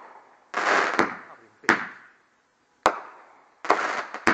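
Aerial fireworks bursting overhead: a run of five sharp bangs, irregularly spaced, with a hissing rush of noise between some of them.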